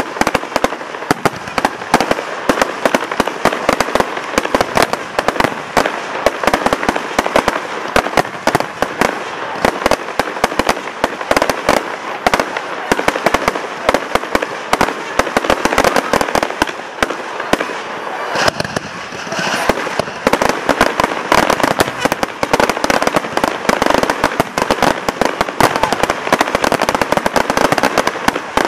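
Fireworks display: a dense, continuous barrage of rapid bangs and crackles from aerial shells and crackling stars, overlapping without pause. There is a brief lull about two-thirds of the way through.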